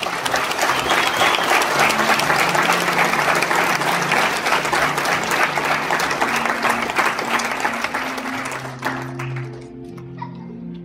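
Crowd applauding, a dense clapping that lasts about nine seconds and then stops, with soft background music holding low notes underneath.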